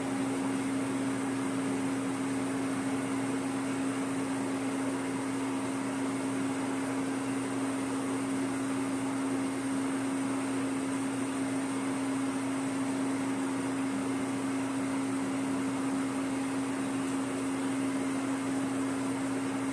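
A machine motor humming steadily, with one strong low tone over an even hiss and no change in speed.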